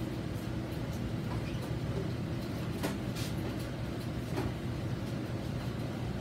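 Steady low machine hum, with a few light clicks and knocks of welding gear being handled, the sharpest about three seconds in.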